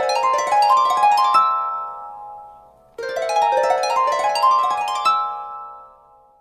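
Samsung Galaxy J1 ringtone: a short harp-like phrase of plucked notes climbing step by step, played twice with the repeat starting about three seconds in, each time ringing away and fading.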